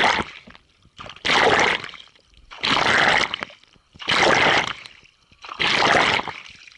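Kayak paddle blades dipping and pulling through river water in a steady stroke rhythm: a splashing swish about every one and a half seconds, five strokes in all.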